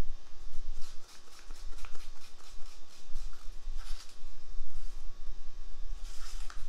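Intermittent rustling handling noise, a few short scratchy patches about one, four and six seconds in, over a steady low rumble.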